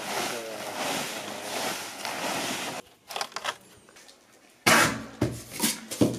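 Voices over a rustling noise, then after a drop in level a few sharp, hollow knocks of cardboard shell tubes being fitted together and handled. The loudest knock is about five seconds in, followed quickly by two or three more.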